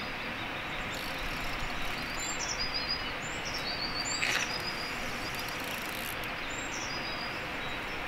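A songbird singing short, high, repeated phrases about every second or so over a steady background hiss, with one brief scratchy sound about four seconds in.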